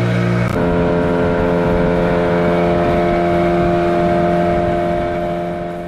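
Boat engine running loudly and steadily close by, its pitch stepping up about half a second in and then holding, before the sound drops away at the very end.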